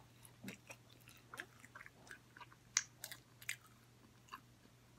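A person chewing food, faint soft irregular mouth clicks and small crunches, with one sharper crunch about three seconds in.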